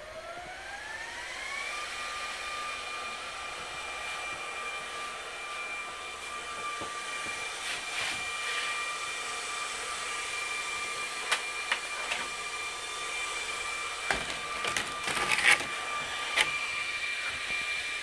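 HPE ProLiant DL120 Gen9 1U server's cooling fans spinning up at power-on: a whine that rises in pitch over the first two seconds, then holds at a steady high speed during early boot initialisation. A few short clicks sound in the second half.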